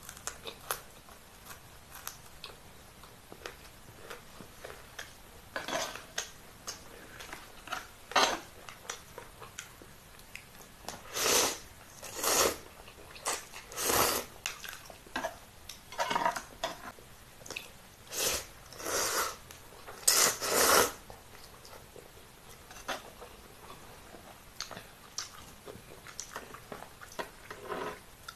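Close-up eating sounds: chewing, and chopsticks clicking against dishes, with a run of loud noodle slurps in the middle, about eight in ten seconds.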